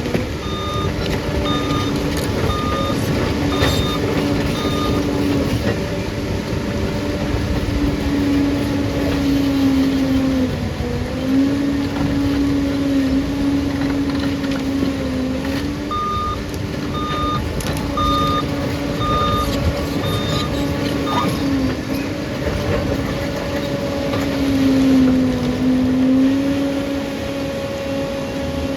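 Liebherr bulldozer's diesel engine running under load, its pitch sagging and recovering now and then as the blade works. A reversing alarm beeps steadily, about once a second, near the start and again a little past halfway.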